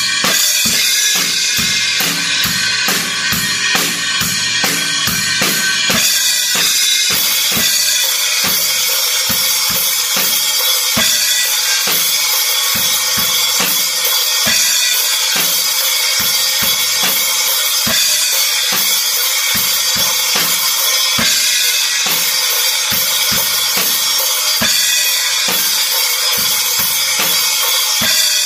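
Acoustic drum kit played on its own, with no backing track: a steady rock beat of bass drum and snare strokes under cymbals ringing continuously.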